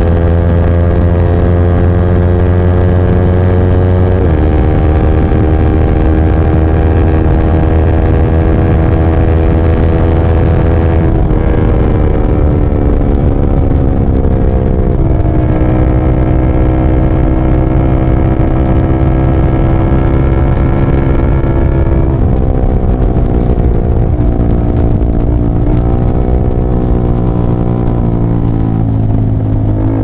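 Yamaha R15 V3's 155 cc single-cylinder engine running through a LeoVince GP Corsa carbon short exhaust while riding at speed. The engine note holds steady, then shifts in pitch at several gear changes, and drops as the bike downshifts and slows near the end.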